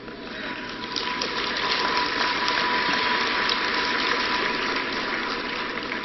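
Large audience applauding, a dense steady patter that swells in over about the first second and holds until the recitation begins.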